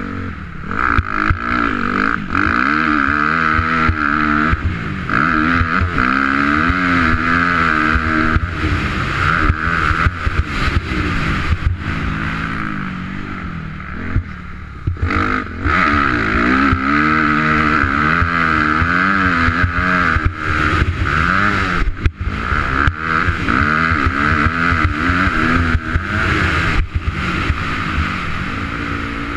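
2004 Honda CRF250R's four-stroke single-cylinder engine being ridden hard round a dirt motocross track, revving up and dropping over and over as the rider goes through the gears and throttles on and off. There are knocks and rattles from the bike over the rough ground, and the throttle eases off briefly about halfway through.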